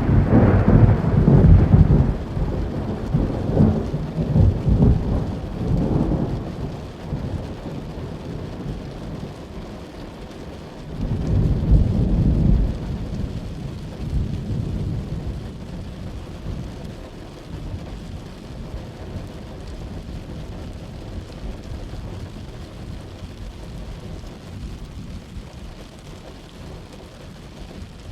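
Thunderstorm: a long roll of thunder fading over the first several seconds and a second rumble about eleven seconds in, over steady rain.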